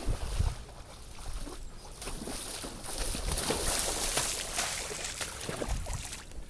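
Sloshing, splashing footsteps of a person wading through a shallow muddy puddle in chest waders, with the heaviest splashing a few seconds in.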